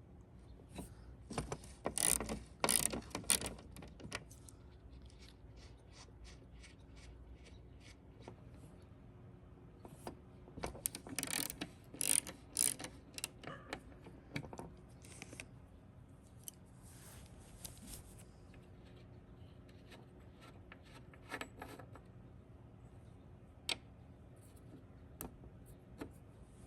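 Ratchet wrench clicking in bursts of quick strokes, with pauses between, as a rusted liftgate hinge nut is worked loose.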